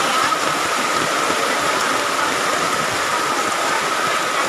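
Heavy rain and fast-flowing floodwater making a steady, even hiss.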